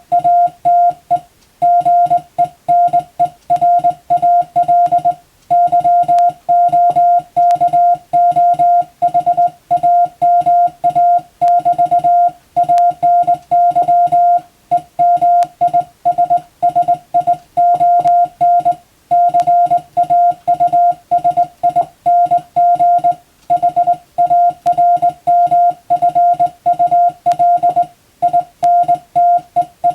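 Morse code (CW) sent by an operator on a telegraph key, heard as one steady high-pitched beep switched rapidly on and off in dots and dashes. The characters run in quick groups, with short silent gaps between words.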